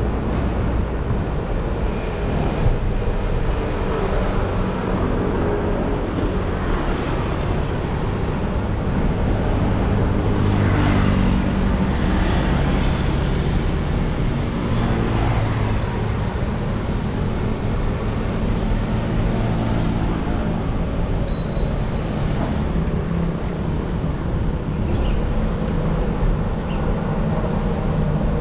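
City road traffic heard from a moving bicycle: motor scooter engines passing close by over a steady low rumble of road noise. One engine comes up most clearly in the middle.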